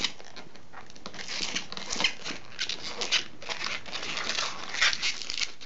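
Latex twisting balloon (a black 160) rubbing and squeaking in short, irregular strokes as it is twisted into pinch twists by hand.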